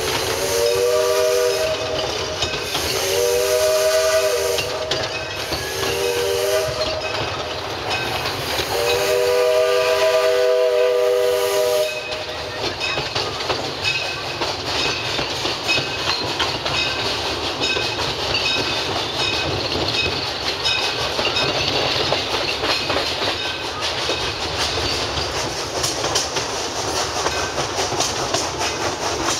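Steam locomotive whistle sounding four blasts of a chord of several tones, the last one long, over the train's running noise; afterwards the train rolls on with its wheels clicking over the rail joints.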